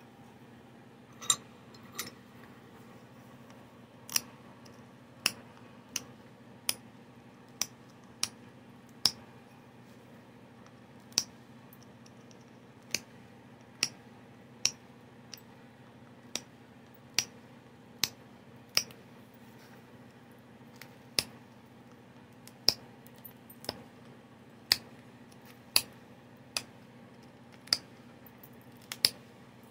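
Flintknapping: sharp clicks of flakes popping off the edge of a stone Clovis point as a hand-held flaking tool is pressed and struck along it against a leather hand pad. Around twenty-five crisp single clicks, irregularly spaced about a second apart, with a couple of longer pauses.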